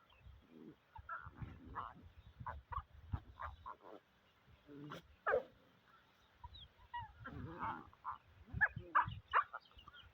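A dog giving a series of short, irregular calls, some sliding down in pitch; the loudest come about a second before the end.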